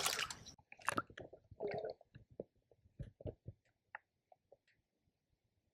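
Close handling noises: a brief rustling burst, then a run of small irregular knocks, clicks and squelches, thinning out over a few seconds.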